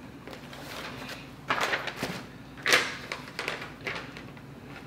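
Cardboard box and paper leaflet being handled: a few short scraping rustles as a small box is opened and a folded instruction sheet pulled out, the loudest about two and three-quarter seconds in.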